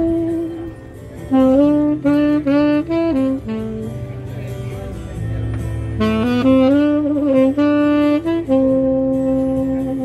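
Saxophone playing a slow melody in short phrases of separate notes. The phrases ease off briefly in the middle, and a long held note comes near the end.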